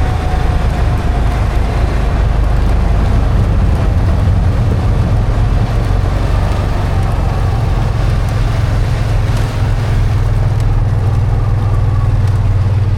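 A motor vehicle's engine running steadily, a heavy low rumble with a constant wash of noise over it.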